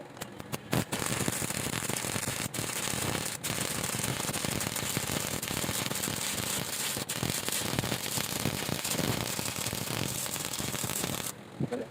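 Stick welding arc: a few short sputters as the arc is struck, then steady crackling for about eleven seconds that cuts off suddenly near the end as the arc is broken.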